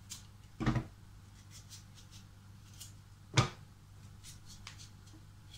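Knife cutting through a raw potato and striking a plastic cutting board, two sharp knocks nearly three seconds apart, over a faint steady low hum.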